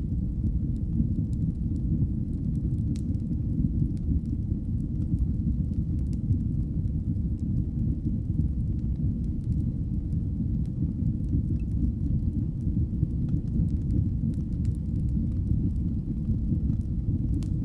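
Wood fire burning in a fireplace: a steady low roar of flames with faint, scattered crackles and pops.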